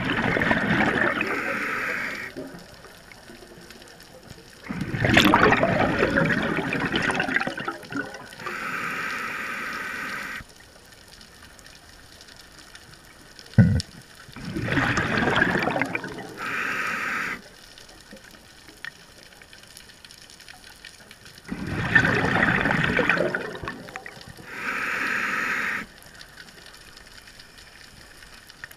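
Scuba diver breathing through a regulator underwater: four slow breaths, each a rush of exhaled bubbles followed by the hiss of the regulator on the inhale, with quiet pauses between. A single sharp knock about halfway through.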